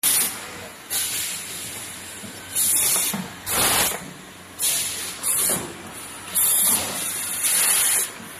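Pneumatic cylinders and valves on an automatic liquid pouch filling machine cycling: sharp bursts of air hiss about once a second, each cutting off suddenly, over a steady mechanical background.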